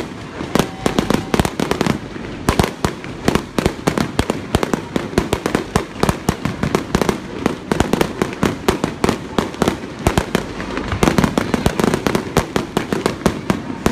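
Fireworks display: aerial shells bursting in a rapid, unbroken barrage of sharp bangs.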